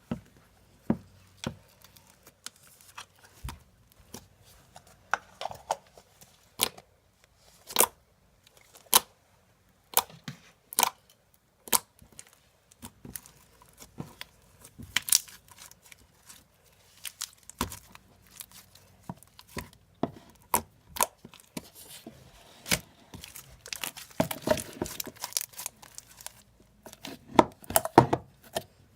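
Slime being handled, squished and stretched, giving irregular sharp sticky pops and clicks, which grow denser and crackly in the last few seconds.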